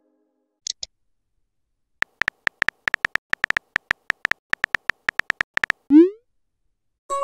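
Texting-app sound effects: two quick high clicks, then a run of about two dozen keyboard-tap clicks at a quick, uneven typing pace as a message is typed, ending in a loud short rising swoop as the message is sent. A steady chime tone starts right at the end.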